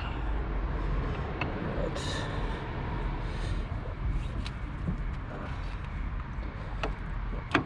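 Steady low rumble of a vehicle engine, with a few light clicks scattered through it.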